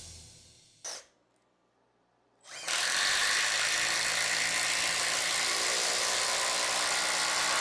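Makita XDT14 brushless impact driver running under load, a steady hammering buzz for about five seconds, starting about two and a half seconds in after a brief silence.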